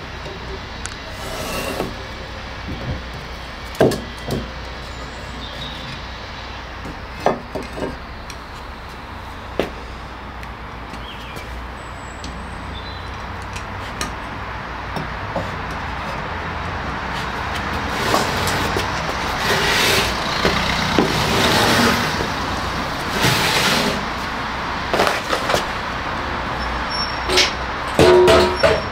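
Gas-fired melting furnace running with a steady rushing noise, with scattered short knocks and clanks; the noise and knocking grow louder and busier about two-thirds of the way through.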